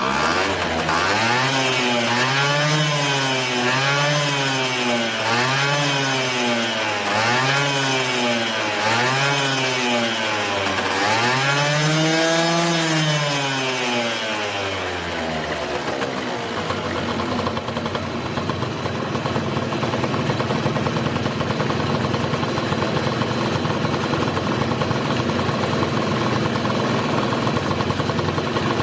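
Honda Super Dio scooter's small two-stroke engine revved up and down repeatedly with the throttle, driving the lifted rear wheel, the last rev held longest; about halfway through it drops back to a steady idle. The freshly overhauled carburettor has it starting and revving cleanly: the no-start fault is repaired.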